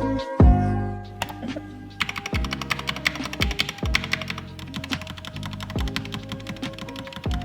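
Background music with rapid clicking of mechanical keyboard keys, which starts about two seconds in.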